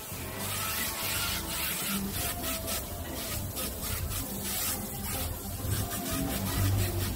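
Compressed-air paint spray gun hissing in repeated short bursts.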